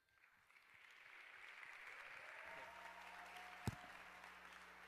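Audience applauding, swelling over the first couple of seconds and then holding steady. There is a single sharp knock about three and a half seconds in.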